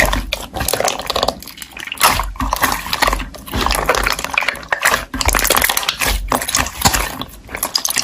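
Slime being squeezed and poked by hand: wet, sticky squelching with an irregular run of crackling clicks and pops.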